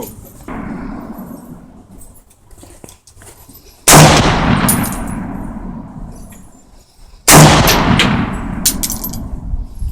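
Saiga AK-47 rifle shots: two loud cracks about three and a half seconds apart, each trailing off in a long echo. A fainter shot comes about half a second in, and a few light metallic clinks follow the second shot.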